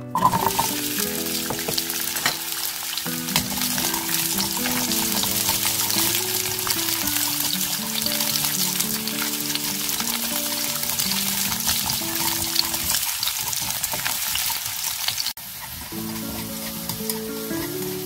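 Garlic cloves dropped into hot oil in a nonstick pan, setting off a sudden loud sizzle that carries on with fine crackling as the cloves fry and are stirred with wooden chopsticks. Background music plays under it.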